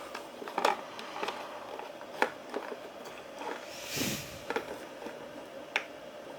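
A few sharp light clicks and taps of a plastic action figure being handled, with a short soft rush of noise about four seconds in.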